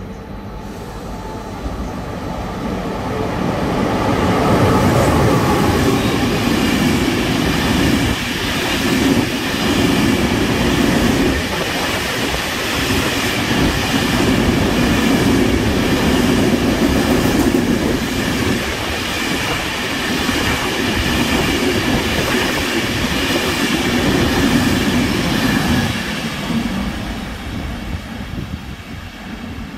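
Freight train of empty flat wagons passing through, a steady rumble and clatter of steel wheels on the rails. It builds over the first few seconds, holds for about twenty seconds and fades near the end.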